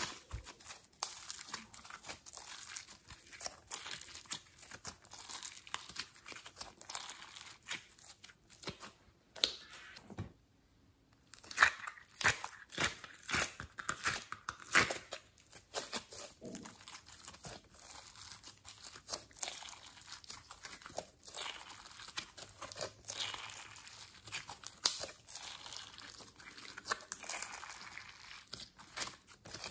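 Slime being squeezed, kneaded and stretched by hand, making a dense, irregular run of sticky clicks and pops. It pauses briefly about ten seconds in, then comes back louder for a few seconds.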